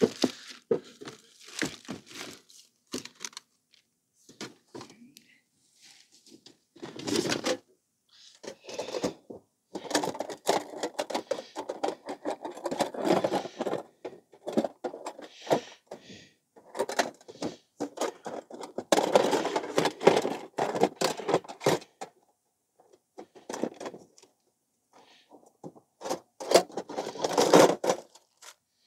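Close-up handling noise of an angler baiting a hook: rustling, crinkling and clicks of bait wrapping and terminal tackle, coming in irregular spells with quiet gaps.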